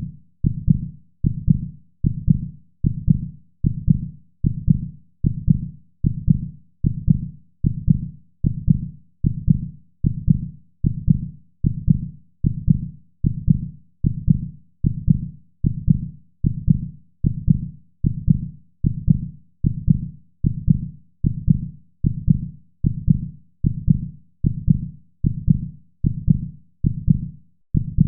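Heartbeat sound: a steady, even rhythm of deep, low thuds.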